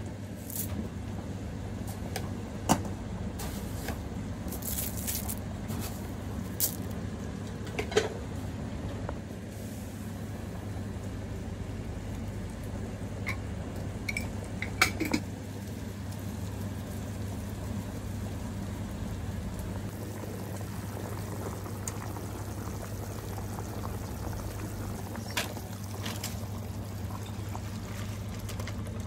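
Broth simmering in a wok, soft liquid bubbling over a steady low hum, with a few sharp clicks and knocks scattered through.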